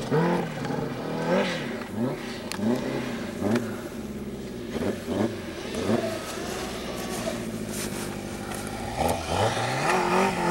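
Snowmobile engine revving up and down over and over as the sled works its way down a snow slope, getting louder near the end as it approaches.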